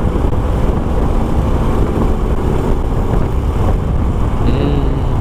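Honda Supra X 125's single-cylinder four-stroke engine running steadily while riding at road speed.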